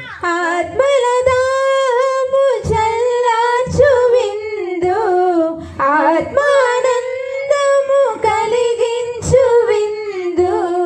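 A woman singing a Telugu communion hymn in long, wavering held notes, with soft low beats underneath.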